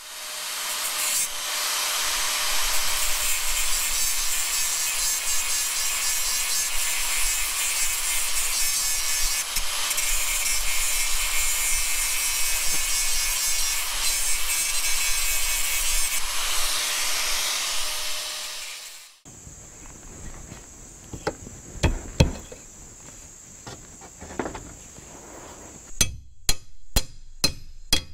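Angle grinder with a wood-cutting disc grinding into a wooden truss piece, running steadily for about eighteen seconds and then stopping. A few knocks follow, and near the end a quick run of hammer blows, about two or three a second.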